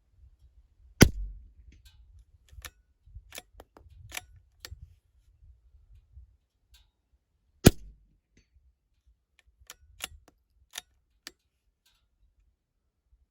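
Two .22LR rifle shots from a Ruger Precision Rimfire, about six and a half seconds apart. After each shot comes a quick series of metallic clicks as the bolt is worked to eject the case and chamber the next round.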